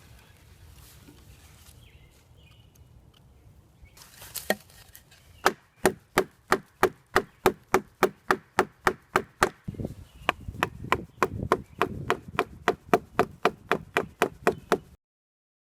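Wooden wedge being hammered into a log to split it: a long run of sharp wooden knocks, about three a second, that stops abruptly near the end.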